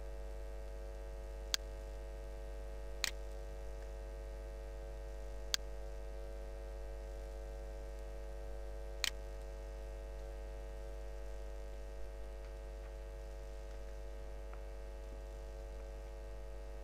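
Steady electrical mains hum with several faint steady tones above it, broken by four short sharp clicks spread over the first nine seconds or so.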